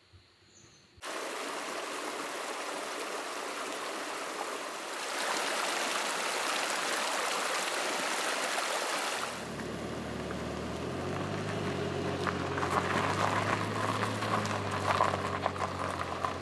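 Near silence, then about a second in the steady sound of a flowing stream starts abruptly and grows louder about five seconds in. From about nine seconds, low-pitched background music joins the water.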